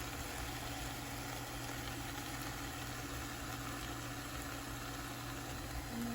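Steady kitchen background while a stir fry cooks on the stove: an even hiss with a low mechanical hum under it, unchanging throughout.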